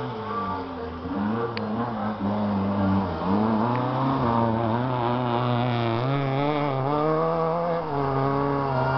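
Rally car engine on a gravel stage, revving up and dropping back repeatedly as it works through the gears. It gets louder about three seconds in as the car approaches.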